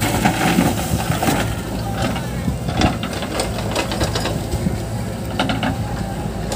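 JCB 3DX backhoe loader's diesel engine running steadily while it tips a bucket of wet soil into a tractor trolley and swings its backhoe arm back to the pile, with irregular clanks and rattles from the bucket and arm linkage.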